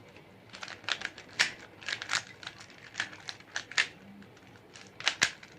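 Plastic Rubik's Cube layers turned quickly by hand: a run of sharp clicks and clacks, a short pause, then a few more clacks near the end.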